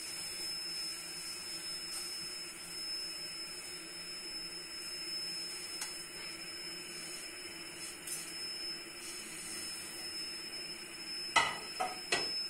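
Steady hiss of a pot of sugar syrup water heating on a gas stove as sugar is poured in from a plate. About a second before the end, two or three sharp metal clanks of kitchen utensils ring out.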